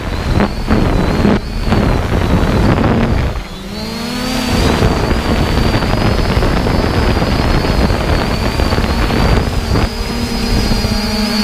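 3DR Iris+ quadcopter in flight, heard from its onboard camera: wind rushing across the microphone over the steady whine of its four brushless motors and propellers. The motor pitch shifts about four seconds in as the motors change speed.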